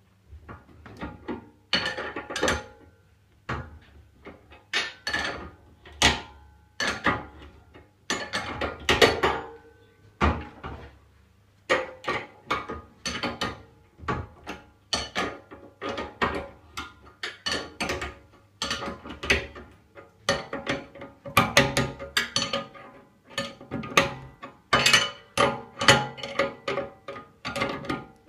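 Hand tools working loose the steering track rod joint on a ride-on train's front axle: a long run of sharp metal clicks and knocks, scattered at first and coming faster and more evenly in the later part.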